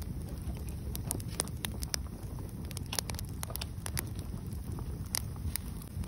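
Wood fire burning, logs crackling and popping irregularly, several snaps a second over a steady low rumble.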